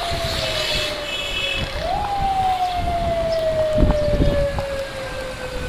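A siren wailing, its pitch falling slowly, sweeping back up quickly about two seconds in, then falling slowly again. A short horn beep comes near the start, over traffic rumble and wind thumps on the motorcycle's microphone.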